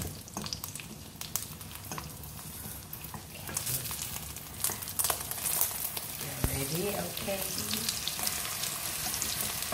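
Egg and onion omelette sizzling in hot oil in a ceramic non-stick wok, with light scraping and tapping from a wooden spatula and fork as it is lifted and broken up. The sizzle gets louder about a third of the way through.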